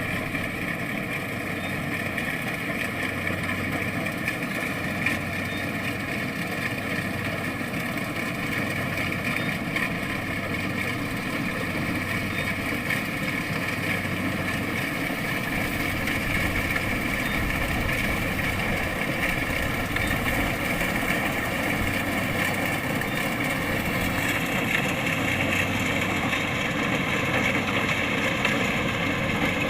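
Kubota DC-70 Plus rice combine harvester's diesel engine running steadily under working load, getting a little louder about halfway through.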